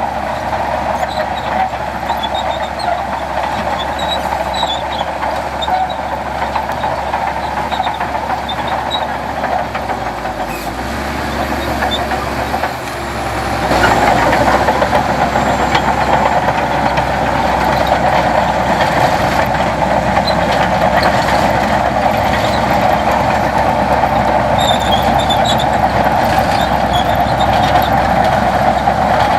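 Heavy diesel construction machinery running steadily under load, with the engine noise growing louder about halfway through.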